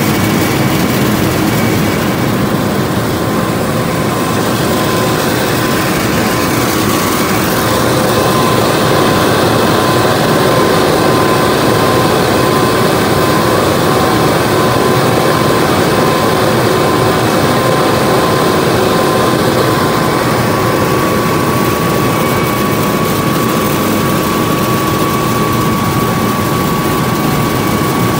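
John Deere 9970 spindle cotton picker running while picking cotton: a steady, heavy machine noise from the engine and picking units, with a constant high whine over it, a little louder for a stretch in the middle.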